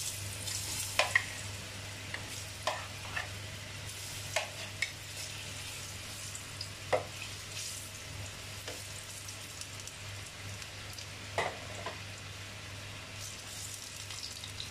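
Banana slices frying in hot oil in a frying pan: a steady sizzle, broken several times by sharp clicks of a metal spoon knocking and scraping against the pan as the slices are turned.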